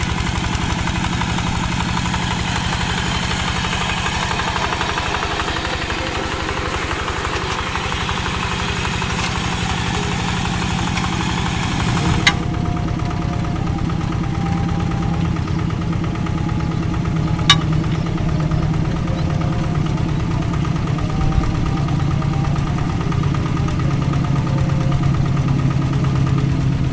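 Single-cylinder diesel engine of a two-wheel hand tractor running steadily under load as its cage wheels work through wet paddy mud, with an even chugging pulse. Two short sharp clicks, about halfway through and a few seconds later.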